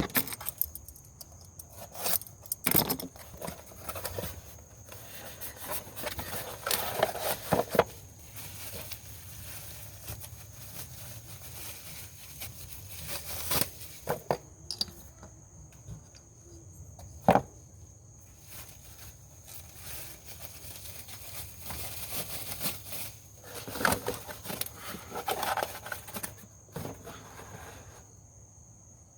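Scattered clicks, knocks and rustles of hands working plastic ignition coils and their connector clips, with one sharp click about two-thirds of the way through. A steady high insect chirr, crickets, runs underneath.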